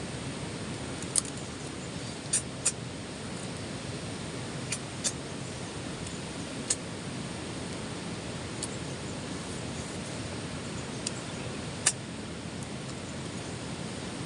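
Steady rushing noise of flowing river water, with about nine short, sharp clicks at irregular intervals.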